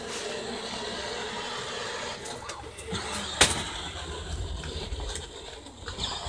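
Battery-powered ride-on toy Jeep driving across grass, its small electric motor giving a faint steady whine. A single sharp click about three and a half seconds in is the loudest sound, and a low rumble follows near the end.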